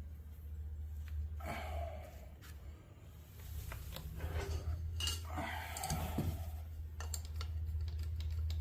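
Metal clinks and short scrapes of an Allen key and tools working a small Allen bolt on a lathe headstock's shift lever, over a steady low hum.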